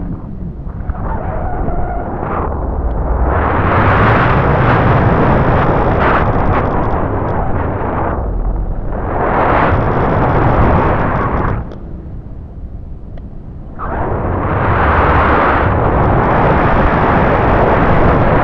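Wind and propeller wash buffeting the microphone of a camera riding on a radio-controlled plane in flight: a loud rushing noise that swells a few seconds in, drops away for about two seconds past the middle, then surges again.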